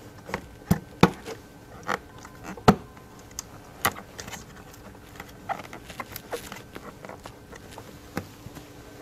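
Scattered clicks and knocks of a carbon-fibre-skinned engine cover being pressed down by hand onto its rubber grommets, the loudest in the first three seconds and lighter taps after.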